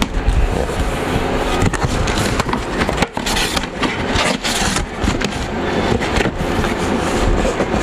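Plastic parcel packaging crinkling and rustling as it is torn open by hand, with louder crackling bursts about three to five seconds in.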